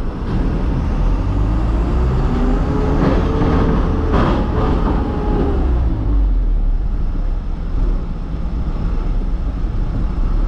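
Light truck's diesel engine and road rumble heard from inside the cab as the truck drives along. The engine note rises and then falls again in the middle, and there are a few short knocks around three to four seconds in.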